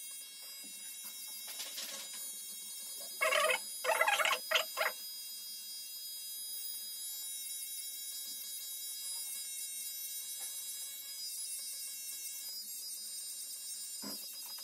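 Cordless hair clipper running with a steady buzzing hum while cutting short at the side and back of the head with no guard (the zero). About three to five seconds in, a few louder short sounds rise over the hum.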